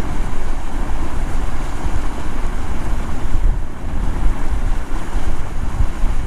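Wind buffeting the microphone, a loud uneven low rumble over a steady rush of moving water.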